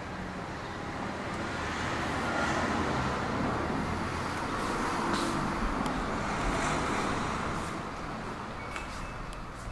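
Road-traffic noise, a steady rush that swells through the middle and eases toward the end, with a few faint clicks.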